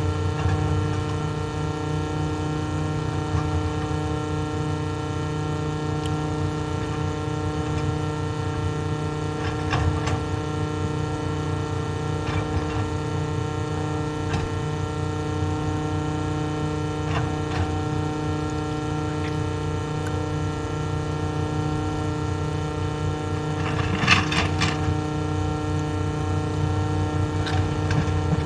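Excavator diesel engine running steadily, with a few short metallic knocks, the loudest near the end.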